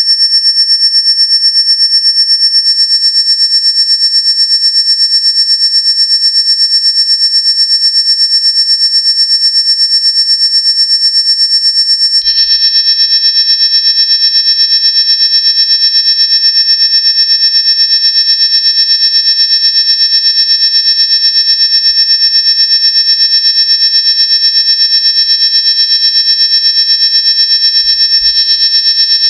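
Loud, high-pitched electronic tone from a modular synthesizer: a cluster of steady, bell-like partials with a fast throb in volume. The mix of partials changes suddenly about three seconds in and again about twelve seconds in, the second change making the sound lower and denser.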